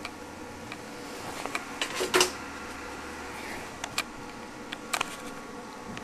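A few short clicks and knocks of things handled on a workbench, the loudest cluster about two seconds in and two more near five seconds, over a steady low hum.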